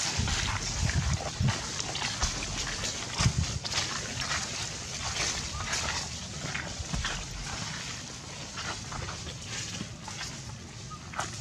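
Dry leaf litter rustling and crackling in quick irregular clicks as monkeys move and shift on it, with bursts of low wind rumble on the microphone in the first few seconds.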